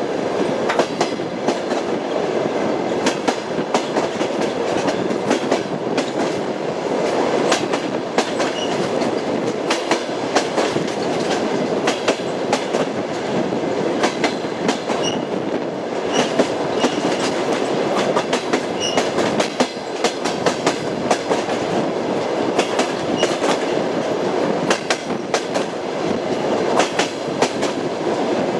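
Train wheels clattering over the rails as the train runs at a steady speed: a continuous rumble with frequent irregular clicks and knocks, and a few faint brief high squeaks around the middle.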